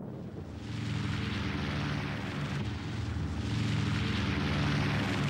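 Aircraft engines running steadily, growing louder about a second in and again around three and a half seconds in.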